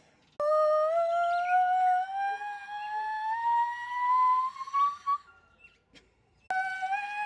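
A girl's voice singing a long, steadily rising glide that climbs for about five seconds and then breaks off. Her attempt at a whistle note comes out raspy and falls short of the whistle register. A second, similar rising glide starts a little higher near the end.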